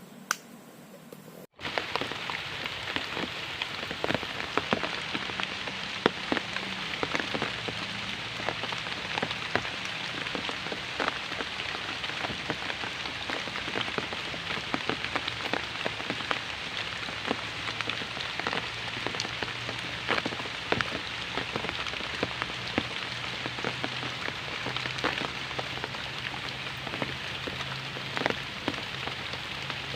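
Steady rain with many separate drops pattering close by. It starts suddenly about a second and a half in.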